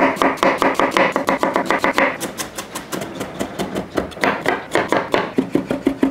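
Chef's knife chopping on a wooden cutting board in quick, even strokes, about six a second: slicing an onion, then mincing it fine.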